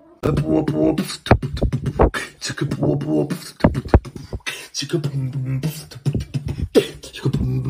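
Beatboxing: rapid mouth-made drum clicks and snaps over low hummed notes in a steady beat, starting suddenly a moment in.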